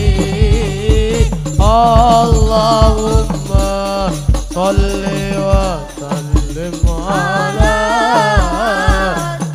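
Hadrah music: rebana frame drums beaten in a steady rhythm under a lead voice singing a devotional melody through a microphone.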